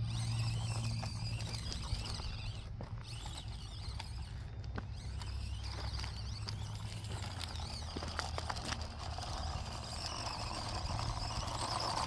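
Axial SCX24 micro RC crawler climbing over loose dirt and rocks: its small electric motor and gears whine faintly, rising and falling with the throttle, while small stones click under the tyres.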